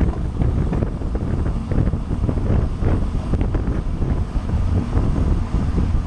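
Wind buffeting the microphone of a camera on a road bicycle riding at race speed, a loud, gusty low rumble.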